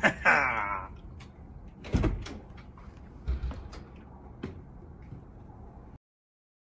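A short shout from a man, then a few separate clunks and knocks of a door being opened and handled.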